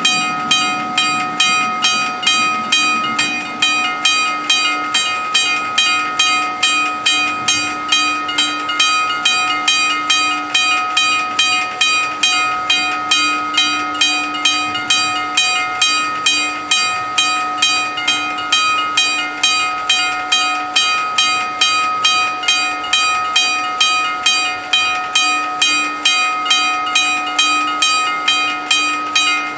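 Two level-crossing warning bells ringing continuously in rapid, evenly repeated strikes, about two a second, while the crossing is closed for an approaching train.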